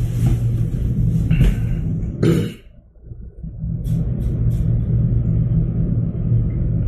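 Steady low rumble and hum inside a moving lift car, with a hissy stretch at first and three brief clicks about four seconds in.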